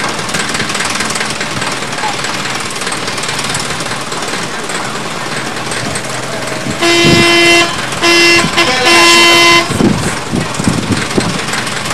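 Small narrow-gauge diesel locomotive idling with a rattling engine, then sounding its horn about seven seconds in: a string of toots, the first and last about a second long, with a short one and a brief blip between. Crowd voices murmur throughout.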